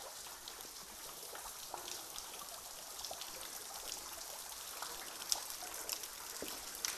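Faint water dripping and trickling around ice columns: a steady light trickle with scattered single drips.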